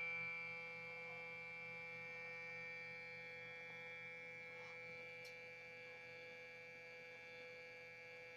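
Stepper motor on a homemade mini CNC's Y axis, giving a faint, steady electrical whine on one even pitch while it is driven on a first test move.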